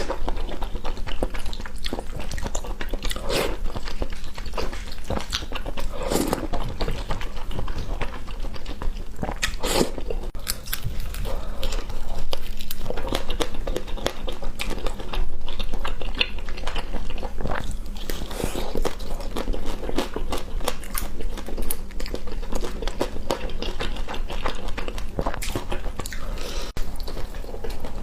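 A person eating, chewing and biting with frequent crunchy bites and mouth clicks, the sound of eating noodles and roasted sauced skin.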